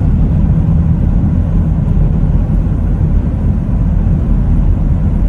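Steady low rumble of a car driving along the road: engine and road noise heard from inside the moving vehicle.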